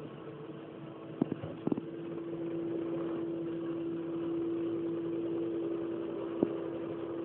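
Heavy farm machinery running steadily during a corn harvest: an engine drone with a steady tone that sets in and grows a little louder about two seconds in, and a few short sharp knocks.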